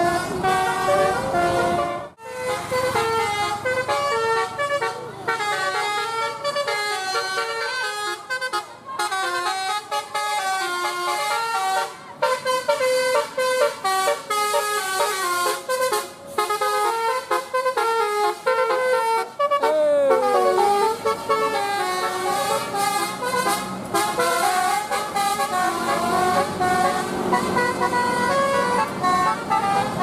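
Tour bus telolet horn, a multi-tone horn module, playing a fast melody of short stepped notes over and over, with a brief sliding drop in pitch about twenty seconds in. The sound breaks off sharply about two seconds in, then a horn picks up again.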